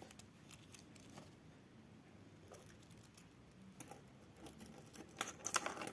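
Faint small clicks and taps from a vintage mechanical wristwatch being handled, with a quicker run of clicks near the end.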